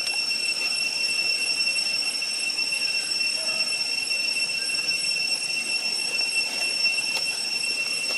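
Cicadas droning: a steady, high-pitched buzzing whine.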